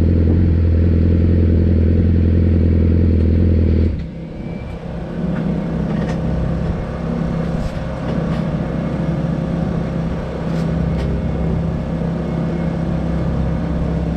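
Race motorcycle engine idling steadily, then shut off abruptly about four seconds in. After it, another engine keeps running more quietly in the background, with a few light clicks.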